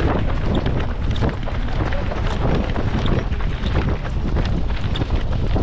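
Wind rushing over the microphone of a hand-carried camera while running, with footfalls slapping on wet asphalt and irregular knocks of handling noise.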